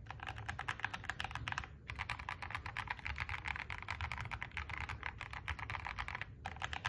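Rapid, irregular clicking in quick runs, broken by two short pauses, one about two seconds in and one near the end.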